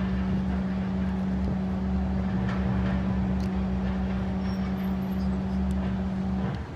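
Steady low hum of an idling engine, holding one even pitch over a low rumble, which stops just before the end.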